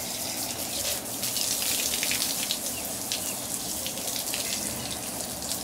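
Water from a garden hose spraying and splashing over a freshly plucked, gutted chicken carcass as it is rinsed.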